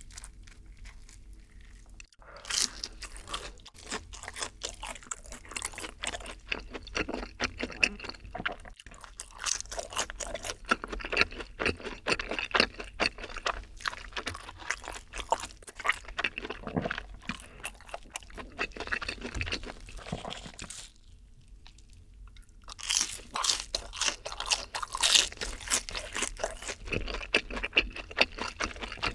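Close-miked crunching and chewing of a fried, breaded long cheese stick, in quick crisp crackles. It starts about two seconds in, pauses briefly a few seconds before the end, then resumes.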